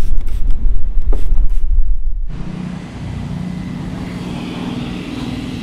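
Wind buffeting the microphone, with a few short squirts from a hand spray bottle. About two seconds in, this gives way to a steady, lower-level mechanical hum with a low drone.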